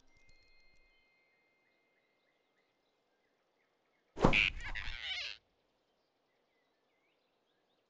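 Cartoon sound effect of a sudden whoosh and impact, about four seconds in and lasting about a second, as a gliding flying squirrel is snatched by a big rabbit. Before it, faint forest ambience.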